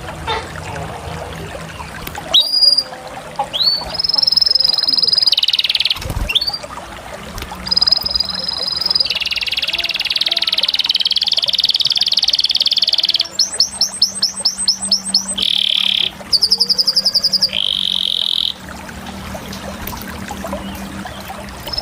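Canary singing a long, varied song of whistled phrases and trills, with a run of fast repeated notes about two-thirds of the way through and a buzzy trill just after; the song drops off near the end.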